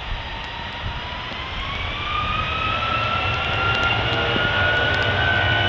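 Boeing 757's jet engines spooling up for takeoff: a whine that climbs steadily in pitch from about a second in as the engine noise grows louder.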